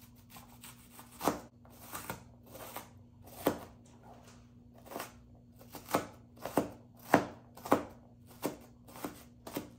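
Chef's knife chopping red onion on a plastic cutting board: uneven sharp knocks of the blade hitting the board, coming quicker in the second half.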